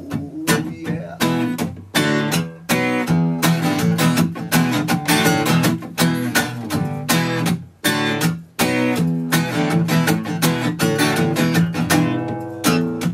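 Acoustic guitar strummed in a quick, steady rhythm as an instrumental break in a rock song. The playing drops out briefly twice, about eight seconds in.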